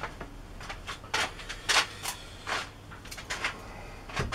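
A string of short, light knocks and scuffs at an uneven pace, roughly one every half second: handling and movement noise in a small workshop.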